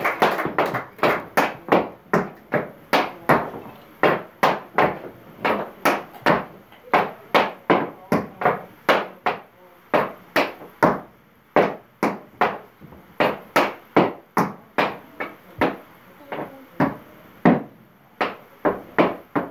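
A child's tap shoes striking a wooden tap board in a run of sharp clicks, about two to three a second and often in pairs, as tap steps are practised.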